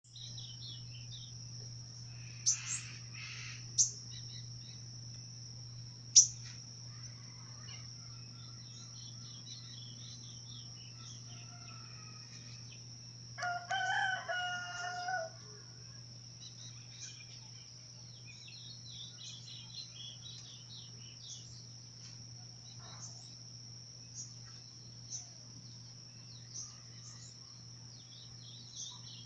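A rooster crows once, a long call of about two seconds midway through, while small birds chirp on and off with a few sharp, louder calls in the first several seconds. Under it all runs a steady high-pitched insect drone.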